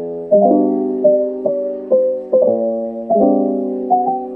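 Soft background piano music: a slow, gentle melody of single notes, about two a second, each ringing and fading over held lower chords.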